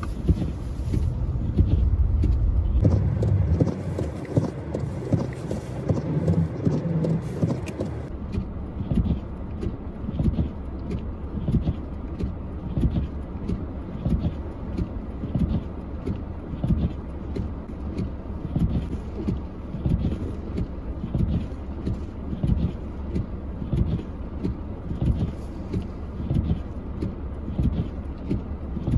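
A vehicle rumbles for the first several seconds; then footsteps crunch through snow at a steady walking pace, about one and a half steps a second.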